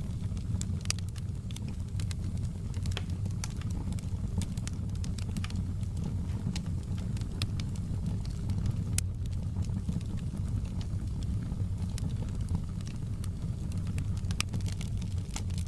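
Wood fire in a fireplace crackling, with many scattered sharp pops and snaps over a steady low rumble of the flames.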